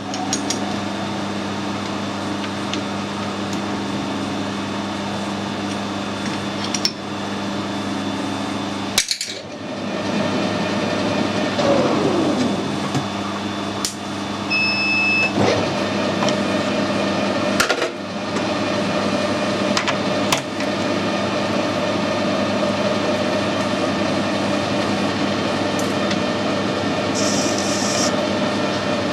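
Machine tool in a metalworking shop running steadily with a constant hum, with scattered clicks and knocks of work. After a break about a third of the way in, a falling whine follows, then a steady, higher-pitched running tone.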